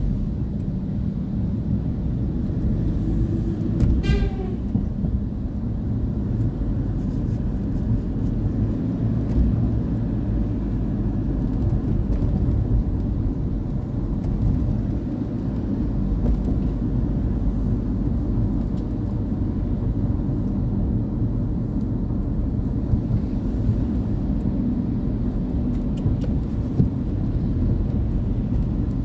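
Steady low rumble of a car driving on a wet road, heard from inside the cabin: engine and tyre noise. About four seconds in there is a brief falling chirp, and a few faint ticks come later.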